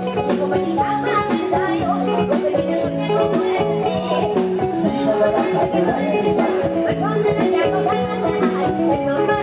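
Live Thai rot hae band music without vocals: an instrumental passage with a steady, quick drum beat under a melody line.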